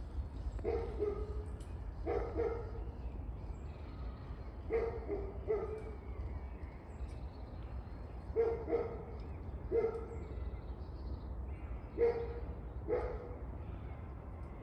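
A dog barking: about nine short barks at uneven intervals, some in quick pairs, over a steady low rumble.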